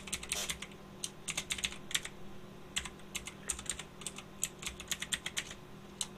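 Computer keyboard typing: quick runs of keystrokes broken by short pauses, over a faint steady low hum.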